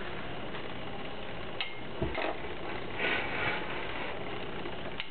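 Two metal Beyblade spinning tops whirring against each other in a plastic stadium, with a few sharp clacks as they strike, about one and a half and two seconds in, and a longer scraping clash around three seconds in.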